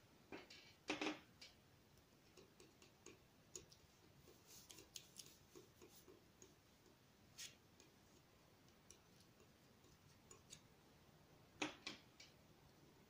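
Faint, irregular taps and scrapes of a metal palette knife mixing oil paint on paper, with two louder scrapes about a second in and near the end.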